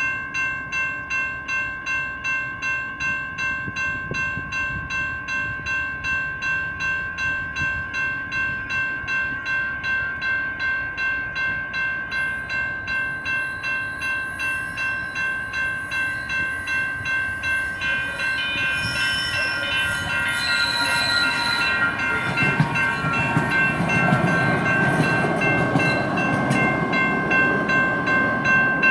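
Electronic railroad crossing bells ringing steadily at about two and a half strokes a second, with a slightly fuzzy tone. From about 18 seconds in, a light rail train approaches and passes, its rumble growing loudest in the last few seconds.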